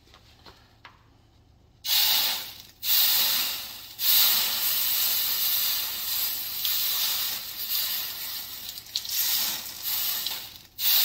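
Water poured onto a hot stainless steel supercharger pulley, hissing and sizzling as it boils off into steam. It starts about two seconds in and comes in several surges, with a short break near the end. The pulley is being quenched so that it shrinks onto the shaft.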